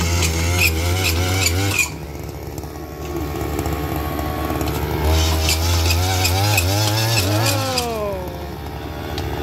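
Small two-stroke engine of a gas-powered one-man earth auger running at high speed as the bit bores into soil, its pitch wavering under load. It drops to idle about two seconds in, revs up again about five seconds in for the next hole, and winds back down to idle near the end.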